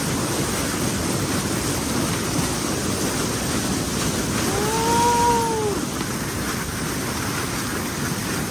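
Steady rush of white water pouring over rocks at a river waterfall, heard close up.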